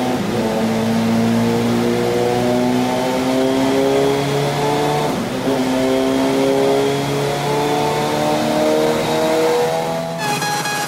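Superbike engine running hard on a chassis dynamometer, its pitch climbing slowly in long pulls and dropping back at each upshift.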